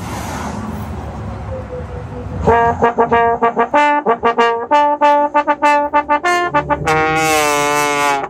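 Trombone playing a quick run of short, detached notes, then one long held note that sags slightly in pitch. It is used as a comic sound effect. The first couple of seconds hold a rushing hiss before the notes begin.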